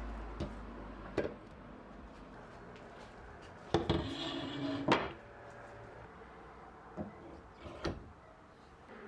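Hard objects handled in a workshop: a few light knocks and clunks, and a scrape lasting about a second, bracketed by two sharper knocks, about four seconds in. A low hum fades out during the first second.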